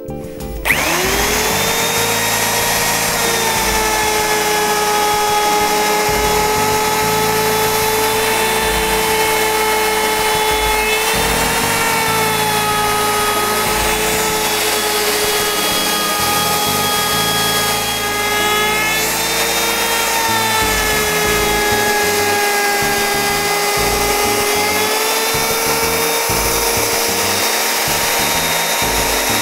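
Bosch plunge router starting up about half a second in, its whine rising quickly to full speed, then running steadily while a bearing-guided contour bit cuts along the edge of a wooden board. The pitch dips briefly a few times.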